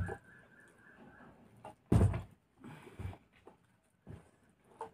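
A plastic bottle thumps down onto a tabletop in a bottle-flip attempt about two seconds in, one dull knock, followed by a few softer knocks and taps.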